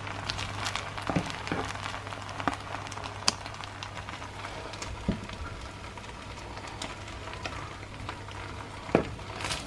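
A pot of rice cooked with onion and oil crackling and sizzling as the last of its water cooks off, the sign that it is done. A few sharper clicks come from the serving spoon as the rice is scooped out.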